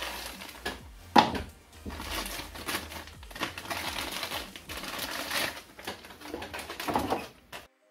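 Plastic and paper packaging crinkling and crackling as a new mains power adapter is unwrapped by hand, with many sharp clicks. The sound stops abruptly near the end.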